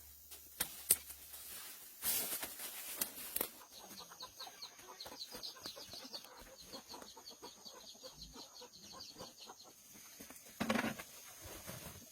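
Bird chirping: a quick run of short, high chirps lasting a couple of seconds, with a few sharp knocks and scraping noises before and after.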